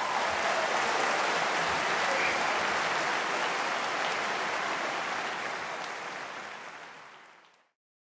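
Audience applauding, a dense steady clapping that fades out over the last couple of seconds.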